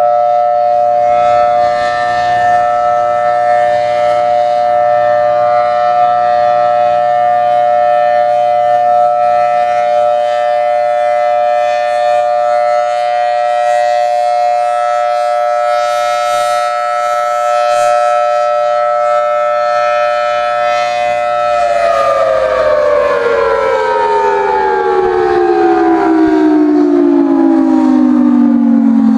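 Federal Signal Thunderbolt 1000T outdoor warning siren with a rotating horn, sounding one loud steady tone. About 22 seconds in, the pitch starts falling steadily as the siren winds down.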